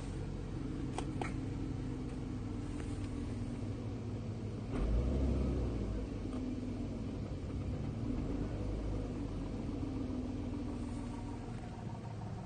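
BMW M50 straight-six idling evenly, with a new ignition coil fitted and no misfire, while it waits to switch over to LPG. There is a brief low swell about five seconds in and a couple of faint clicks about a second in.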